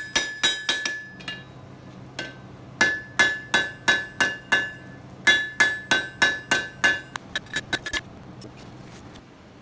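Hand hammer striking red-hot flat bar steel on an anvil, hand-forging the bar into a bend, with the anvil ringing at each blow. The blows come in runs of several at about three a second with short pauses, and end in a few quicker, lighter taps about eight seconds in.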